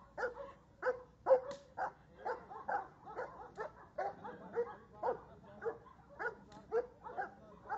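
Spanish Alano dog barking repeatedly, about two barks a second, as it lunges on the leash at a decoy's stick in protection training.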